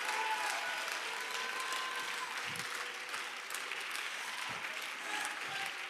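Congregation applauding, a dense patter of many hands, with a few faint voices calling out in the mix.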